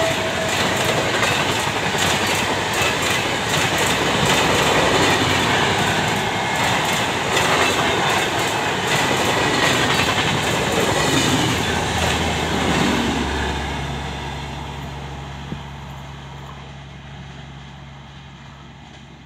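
Express train's passenger coaches rushing past at full speed, wheels clattering over the rail joints. About two-thirds of the way through, the noise begins to fade steadily as the train draws away.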